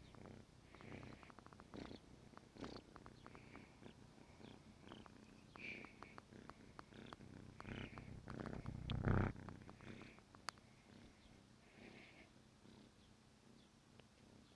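Kitten purring steadily, with soft rustles and small clicks over the purr. About nine seconds in comes a louder thump, then a single sharp click.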